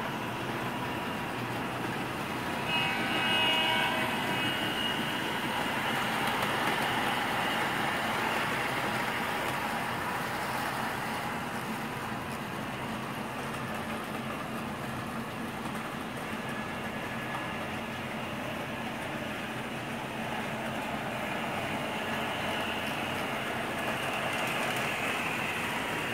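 Model diesel train, an American Flyer Alco fitted with MTH Proto-Sound 2 electronics, running steadily around the layout. Its wheels roll on the rails under the sound system's diesel rumble, and a brief horn sounds about three seconds in.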